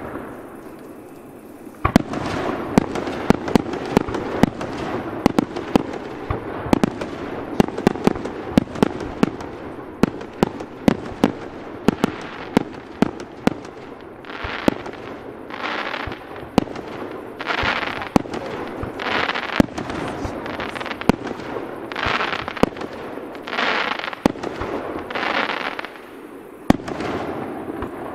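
Aerial fireworks display: a dense volley of sharp bangs starting about two seconds in, then a series of shells going up one after another with a hiss of about a second, each ending in a bang as it bursts.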